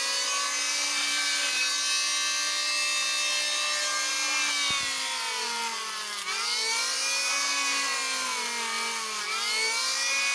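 Electric hand planer motor running at speed with its worn old blade, the whine dipping in pitch several times as it is pushed across a wooden plank under load and recovering between passes.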